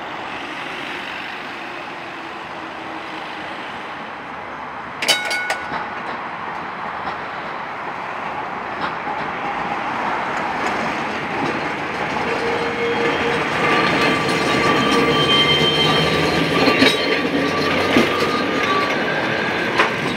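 1949 tram car No. 94 running along the rails and growing louder as it comes close, with clanks over the track. A sharp clank about five seconds in, and steady wheel squeal on the curved junction track in the second half.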